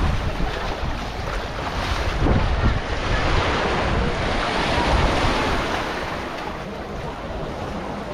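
Waves washing up on a beach in several swells, with wind rumbling on the microphone.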